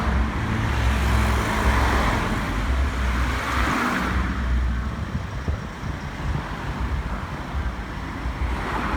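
Motor vehicle running with traffic noise: a low engine drone under a rushing noise that swells and fades, loudest in the first few seconds and quieter after about four seconds in.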